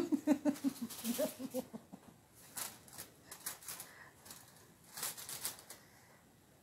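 Light clicks and scrapes of a wooden spatula pushing sliced vegetables about on baking paper and crinkly aluminium foil. For the first two seconds there is also a quick run of pulsed, voice-like sounds falling a little in pitch.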